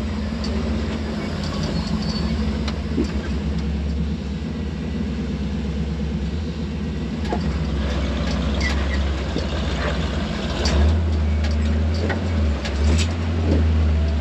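A truck engine runs at low speed while crawling over a rocky trail, with scattered clicks and knocks. The low engine note grows louder about eleven seconds in.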